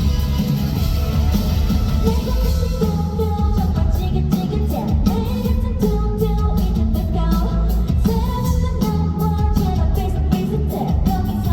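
Live pop-rock band with drums, bass and guitar playing through a concert sound system, with a woman's lead vocal coming in about two and a half seconds in. The low end is heavy and booming.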